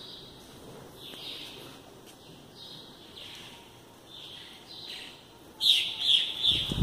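Birds calling in a garden: a short note that falls in pitch, repeated about once a second, then a louder quick run of four or five chirps near the end.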